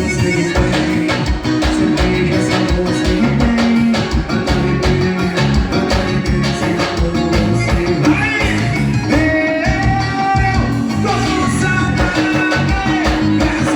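Forró song playing with a fast, steady beat; a voice sings over it from about eight seconds in.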